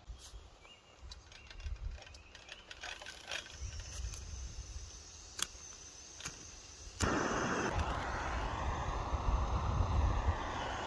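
Camping gas stove being lit: a few sharp clicks, then about seven seconds in the burner catches and burns with a loud, steady hiss to heat the sandwich toaster.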